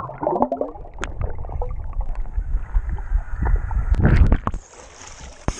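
Lake water heard from underwater: a muffled, low churning rumble with bubbling and scattered sharp clicks. It swells loudest about four seconds in, then drops quieter.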